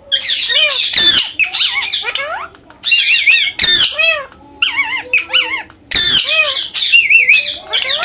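Indian ringneck parakeet squawking and chattering: a string of loud, harsh calls with warbling, wavering pitch, each lasting under a second with short pauses between.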